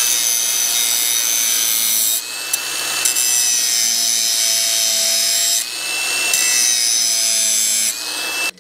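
Angle grinder cutting a steel bolt to length, its disc running steadily under load with a high whine. The note dips briefly about two seconds in, again near six seconds and just before the end, as the disc eases off the metal.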